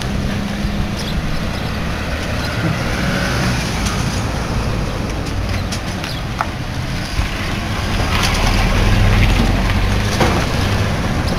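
Road traffic on a town street: cars passing steadily, with a vehicle's engine growing louder in the last few seconds.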